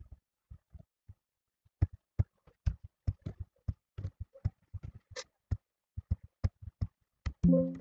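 Computer keyboard keys and a mouse clicking in a quick, irregular run of short taps. Near the end a short, loud low-pitched tone starts.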